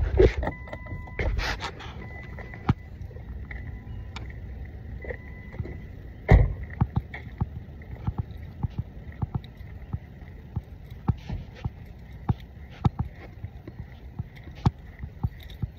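Low rumble of wind and handling on a phone microphone, with scattered sharp clicks and taps and one loud thump about six seconds in. A faint steady high tone sounds for the first couple of seconds.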